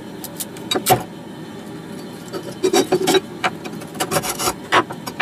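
A steel tool prying and scraping at the riveted wooden handle of a rusty cleaver: irregular clicks and knocks of metal on metal and wood, with a sharp knock about a second in and short bursts of scraping later.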